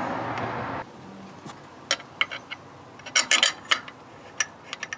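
Steel parts clinking and tapping against each other as a bracket and its bolts are fitted by hand onto a cast thermostat housing on an engine: a scatter of short sharp clinks, thickest around the middle. A steady background noise cuts off abruptly under a second in.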